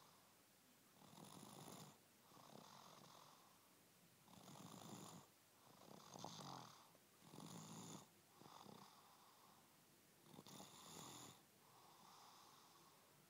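An 18-month-old toddler snoring heavily in sleep: a faint rasping snore with every breath, louder and softer snores alternating, about four breath cycles.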